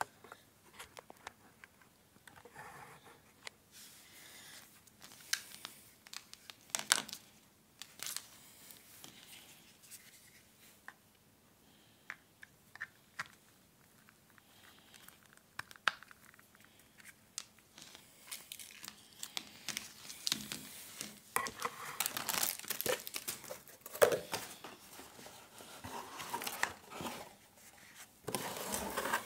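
Cardboard box and plastic packaging being handled during an unboxing: plastic wrap and bags crinkling, with scattered rustles and light knocks of cardboard. Sparse at first, busier and louder in the last third.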